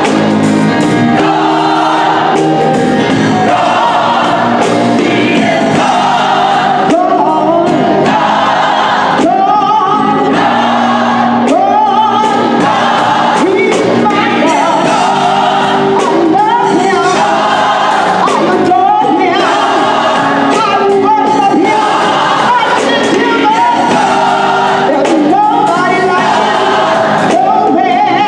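Gospel choir singing, with a soloist leading on a microphone over the sustained parts of the choir.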